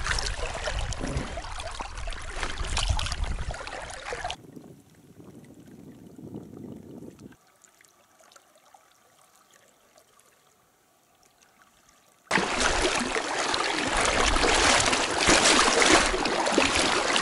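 River water rushing and trickling close to the microphone. About four seconds in it cuts off suddenly to faint sound and then several seconds of near silence, and the loud rush of water comes back abruptly near the end.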